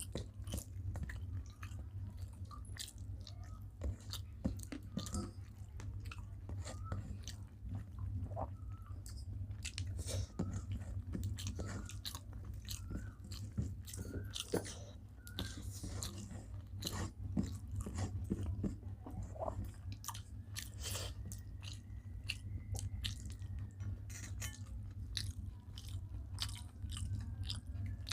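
Close-up eating sounds of rice and curries being chewed, with frequent small crunches and mouth clicks, over a steady low hum.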